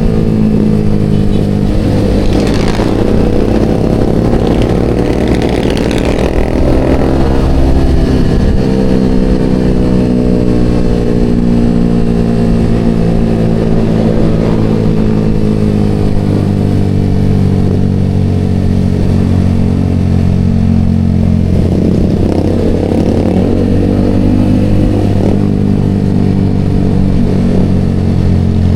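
Yamaha XSR motorcycle engine running under way through an aftermarket Vmax canister exhaust, its pitch easing down and holding steady as the bike cruises.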